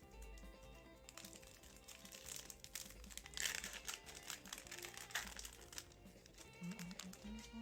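Foil wrapper of a trading card pack crinkling as it is opened, loudest about three and a half seconds in, over background music.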